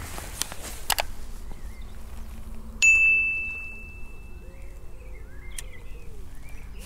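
A single bright bell ding about three seconds in that rings on and fades over a couple of seconds: the notification-bell sound effect of a like-and-subscribe button animation. A short sharp click comes about a second in.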